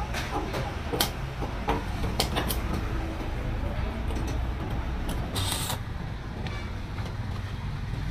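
Plugs, switches and wires being handled at a wall switchboard, giving a series of sharp clicks in the first few seconds over a steady low hum, with a brief hiss a little past the middle.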